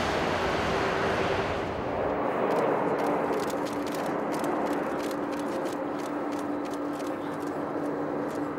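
Jet airliner engines heard across an airfield as a steady noise. About two seconds in the sound changes to a Boeing 747 freighter landing: its engines give a steady hiss with one held tone, and faint clicks run through it.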